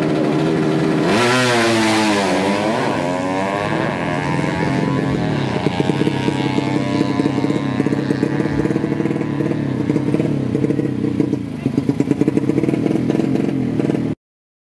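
A 130cc four-stroke underbone drag bike launches about a second in, its engine revving up hard through quick gear shifts and fading as it runs away down the strip. After that a motorcycle engine runs close by with an uneven, choppy note until the sound cuts off near the end.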